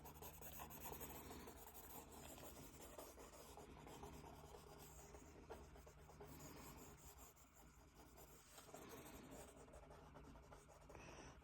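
Faint pencil scratching and rubbing on paper as a drawing is shaded, over a low steady room hum.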